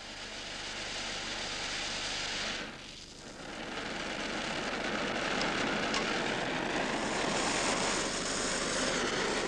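Oxyacetylene welding torch flame hissing steadily. The hiss dips briefly about three seconds in, then returns a little louder and brighter as the flame is turned from a yellow acetylene flame to a blue oxyacetylene flame.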